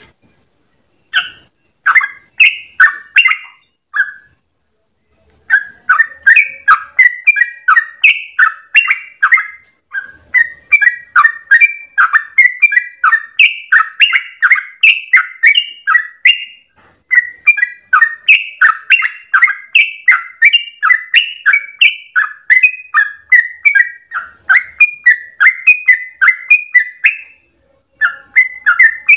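Yellow-vented bulbul (trucukan) singing its rapid 'ropel' song: long runs of short whistled notes, about three a second, broken by a few brief pauses.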